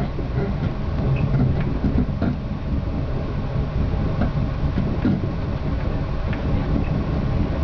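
Passenger train heard from inside the coach while moving: a steady low rumble of wheels on rail, with scattered short clicks and knocks as the wheels pass over the track.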